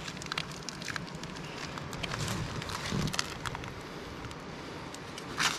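Wood cooking fire crackling under a pot, with scattered sharp pops over a steady hiss, and a louder burst of noise near the end.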